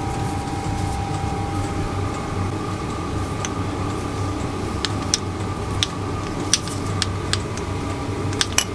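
Steady workshop hum with a series of light clicks and taps from about five seconds in, as of engine parts being handled.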